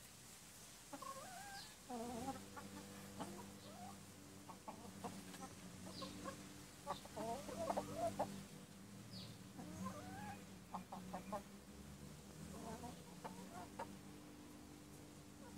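Backyard hens clucking softly in short, scattered calls as they peck at cut grass, with a few sharp ticks among the calls and a steady low hum underneath.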